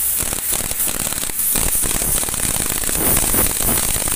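Pneumatic impact wrench hammering rapidly over a hiss of exhaust air as it undoes the top nut of a shock absorber's piston rod. The hammering gets heavier about a second and a half in.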